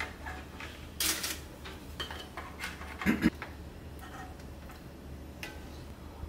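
Kitchen handling sounds of lasagna assembly: pasta sheets pressed into metal baking pans and a ladle scooping meat sauce, with scattered light clatters and scrapes over a low steady hum. There is a louder clatter about a second in and a heavier knock about three seconds in.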